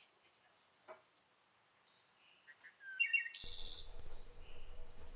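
Near silence at first, then small birds chirping: a few short high calls about three seconds in, followed by a quick rapid run of high notes, over a faint steady background hiss.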